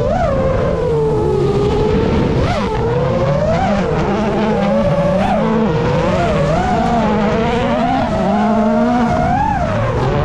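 Citroën C3 WRC rally car's engine revving hard. Its pitch climbs and drops over and over, about once a second, as it is worked through gears and lifts.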